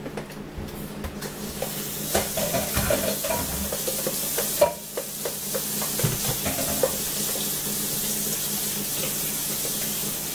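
Cornbread batter being mixed by hand in a plastic bowl: steady wet stirring and squishing, with a few light knocks against the bowl.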